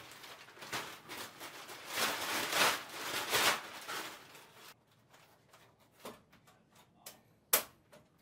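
Large plastic sheet rustling and crinkling in waves as it is shaken out and unrolled, loudest a little past the middle. Then a few sharp clicks, the loudest near the end, as the sheet is put up against the wall framing.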